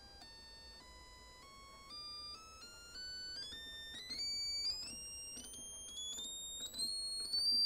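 Sine test tone from a speaker driven by a two-stage 2N3904 BJT amplifier, stepped up in pitch in small jumps from about 800 Hz to about 5 kHz. It grows louder as it climbs, with a faint tick at many of the steps.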